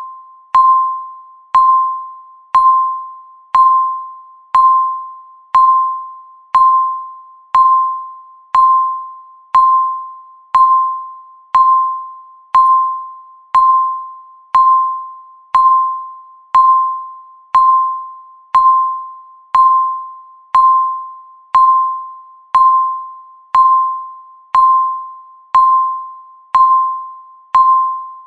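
Countdown timer beep sounding once every second: a single mid-pitched tone that starts sharply and fades after each strike, repeating at an even one-per-second rate.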